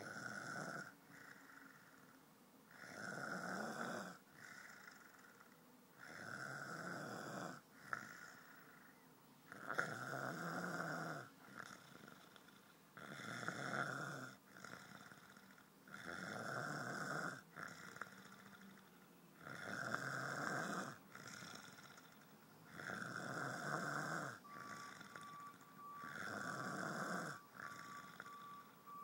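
A man snoring in slow, regular rounds, about one snore every three and a half seconds.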